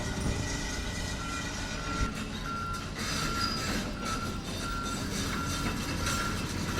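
Vehicle reversing alarm beeping, one steady tone about twice a second, over the rumble of engine and background noise.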